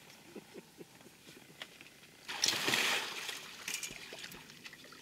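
Large Orinoco crocodile heaving its body up in shallow muddy water: a single splash lasting under a second, about halfway through, then a few fainter water sounds.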